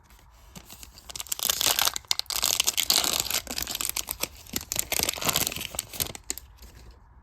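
A trading-card pack wrapper being torn open and crinkled, a dense crackling that runs for about five seconds and is loudest near the start.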